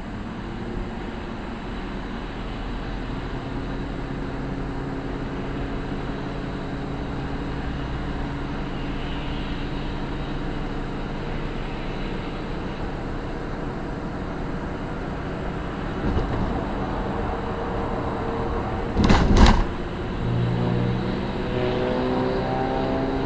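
Road and engine noise inside a car cruising on a highway: a steady hum with tyre rumble. There is a brief loud double thump a little after nineteen seconds in, and the engine note rises near the end.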